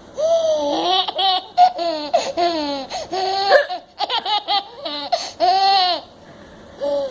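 A baby laughing in a long string of quick, high-pitched bursts, breaking off about six seconds in, with one short burst near the end.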